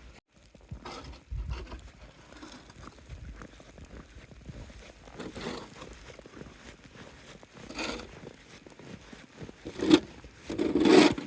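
Footsteps crunching through deep snow: an irregular scraping, crackling noise, with a few louder crunches later on.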